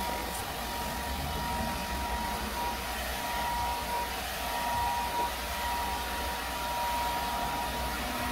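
Handheld hair dryer running steadily: a rush of blown air with a steady whine.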